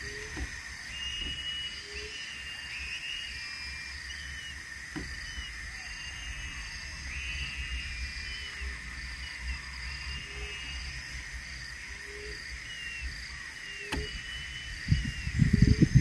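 Forest ambience: a steady high insect drone with short bird chirps repeating about once a second. A low rumble rises near the end.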